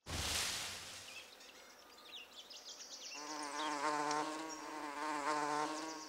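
A short swish of noise, then from about three seconds in a cartoon bee's wings buzzing as it flies: a steady, wavering buzz. Faint high chirps come before it.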